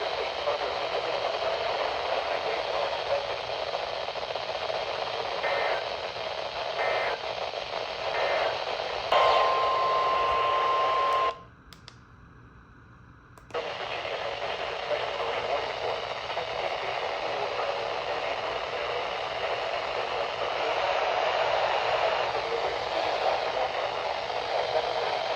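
Weather radio receiver hissing with static, with a few faint short bursts, then a steady tone near 1 kHz held for about two seconds, typical of the NOAA Weather Radio 1050 Hz alert tone. The tone and the hiss cut off together into about two seconds of near silence before the static comes back.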